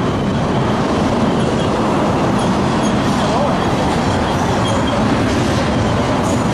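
Freight train passing close: a loud, steady rumble of wheels and cars on the rails, with a few faint high squeals.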